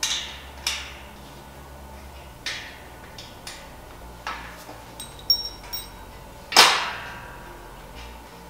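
Irregular sharp metallic clicks and knocks from an Allen wrench and bolts working on a steel bed frame, a dozen or so at uneven intervals. A short metallic ring comes just before the loudest knock, which falls about two-thirds of the way through.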